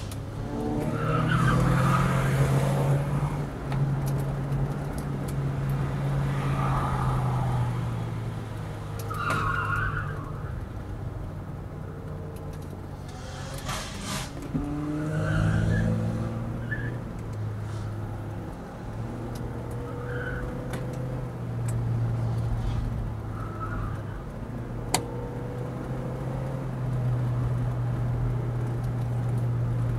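Car engine and road noise heard from inside the cabin while driving briskly through bends, the engine drone stepping up and down in pitch as the car accelerates and changes gear. Short squeals are heard several times.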